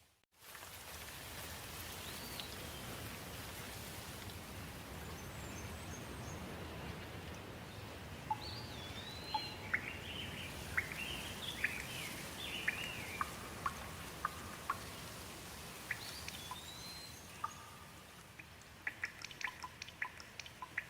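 Steady rain falling, with songbirds calling over it in short whistled phrases, most busily in the middle. Near the end the rain eases and quick, sharp water drops start dripping.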